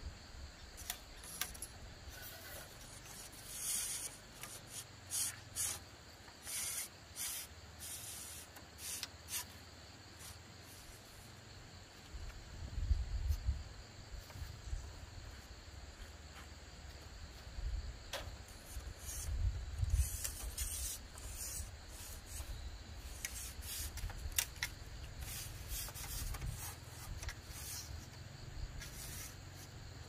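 Repeated short scraping or rubbing strokes, coming in runs with pauses between them, with a few low rumbles around the middle.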